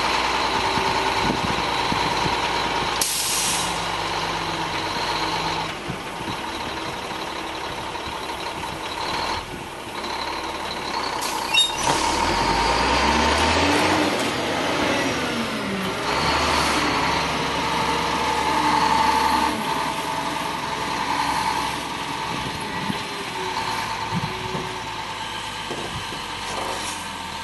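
Heavy dump truck's diesel engine running as it drives slowly along the track, spreading its load of sand, with the engine note rising and falling midway. A short hiss of air brakes about three seconds in.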